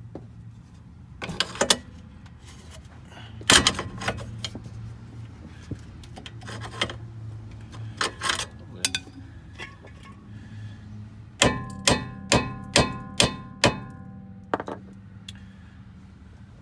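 Scattered metal clanks from tools and steel parts during work on a car's rear suspension, then a quick run of about six ringing metal-on-metal strikes, about two a second, about two-thirds of the way through.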